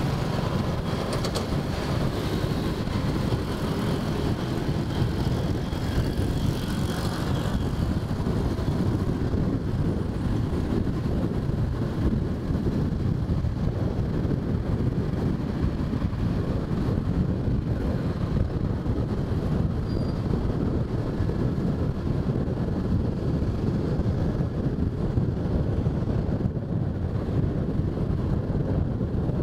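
Steady low rumble of motorbike and car traffic, heard from a moving motorbike: engines running with road and wind noise on the microphone.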